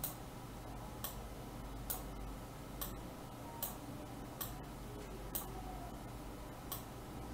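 Computer mouse clicking: about eight short, sharp clicks spaced roughly a second apart, over a faint low hum.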